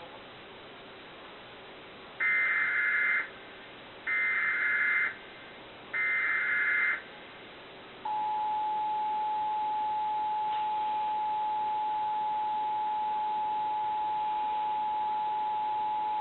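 Emergency Alert System activation: three short bursts of warbling SAME digital header data, each about a second long and two seconds apart, then the steady two-tone EAS attention signal starting about halfway through and holding for about eight seconds. The tones mark the start of an EAS test message.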